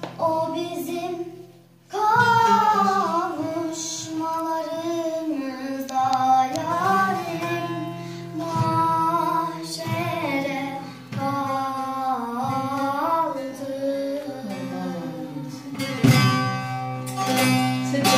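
A girl sings a Turkish song to the accompaniment of a bağlama (long-necked Turkish saz). Her voice comes in about two seconds in after a brief pause, and near the end the bağlama plays on alone with quick, dense strumming.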